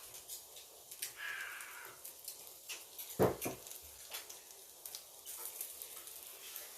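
Close-miked eating sounds: many small mouth clicks while chewing, a brief rustle about a second in, and a louder dull knock about three seconds in.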